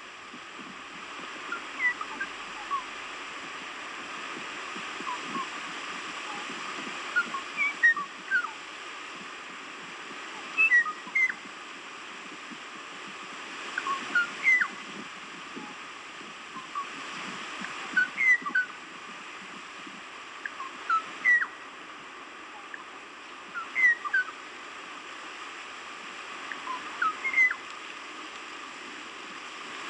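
Kauaʻi ʻōʻō singing: short, clear whistled notes, some sliding in pitch, given in small clusters every three seconds or so over a steady background hiss.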